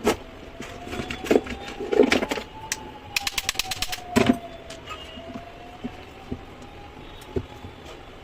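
Knocks and clicks of a small tool being handled, with a quick run of about ten clicks a second for about a second in the middle, over a faint thin whine that slowly wavers in pitch.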